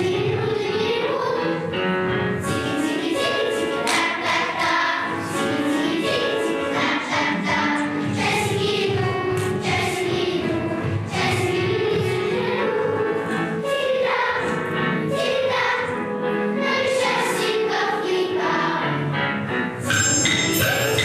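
A choir singing a song over instrumental accompaniment. Near the end, high chiming bell-like tones come in.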